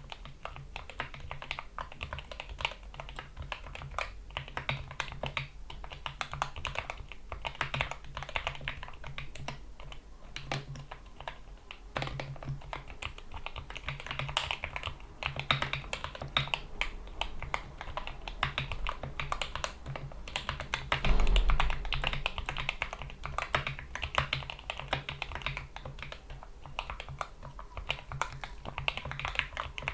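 Continuous fast typing on a GK61 mechanical keyboard with lubed Gateron Yellow optical switches, PBT keycaps and O-ring dampeners: a dense run of muted key clacks, with one heavier low thump about two-thirds of the way through.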